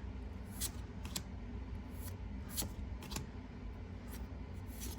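Pokémon trading cards being slid and flipped one by one through a freshly opened booster pack: soft card clicks and rustles about every half second, over a low steady hum.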